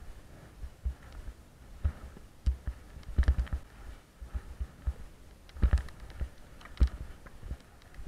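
A horse's hoofbeats on turf, picked up through a helmet-mounted camera as dull low thumps in uneven clusters, the strongest about three seconds in and just before six seconds, with a few sharper knocks.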